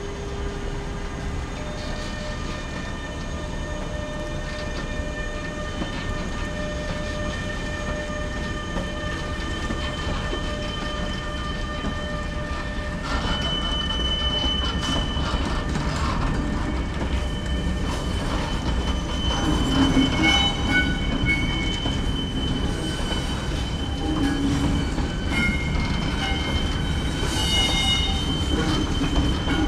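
Freight train of covered intermodal wagons, hauled by an electric locomotive, rolling past with a low rumble and several steady high-pitched wheel squeals. Occasional clanks are heard, and the squeal grows louder in the second half.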